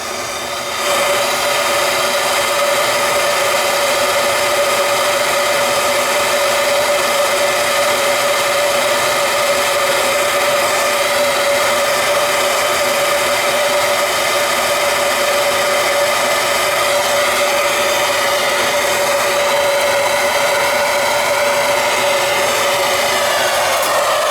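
Soldering torch flame running steadily, a loud even hiss with a steady whistling tone, starting about a second in. The flame is heating a leaking copper pipe joint to re-solder it.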